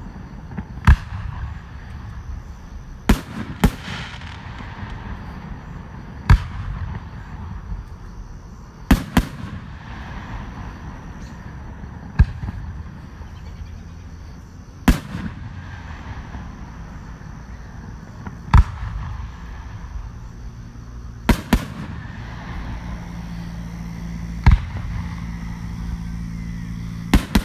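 Aerial fireworks bursting: about a dozen sharp bangs every few seconds, some in quick pairs, with steady background noise between them. A steady low hum comes in during the last few seconds.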